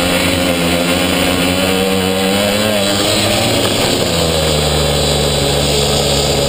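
Pocketbike's small two-stroke engine running, heard from on board the bike. Its pitch wavers, falls about three to four seconds in, and then holds steady at a lower note.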